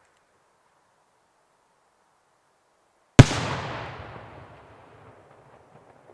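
A single firework shell bursting with one sharp, loud bang about three seconds in, its echo rolling away over the next two seconds.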